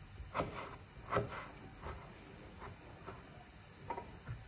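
Kitchen knife chopping dried fruit on a cutting board: about eight short, irregular knocks of the blade against the board, spaced well apart.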